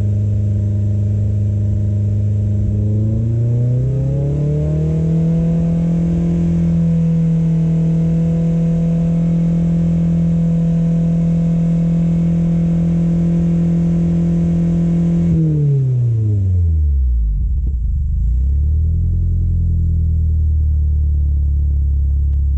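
Car engine heard through an exhaust with a newly fitted 3-inch-bore clamp-on stainless steel silencer. It is held at steady raised revs, then revved higher a few seconds in and held there for about ten seconds. The revs then drop back and it settles to a steady idle.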